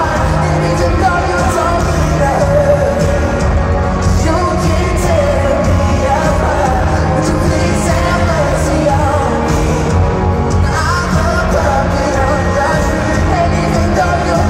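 Live pop song played in an arena: a male singer at the microphone over band accompaniment, with a wavering sung melody over a steady low backing.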